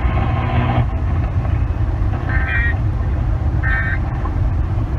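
Emergency Alert System end-of-message data bursts, the three short two-tone digital squawks that close a broadcast warning, about 1.3 s apart, over a steady low rumble.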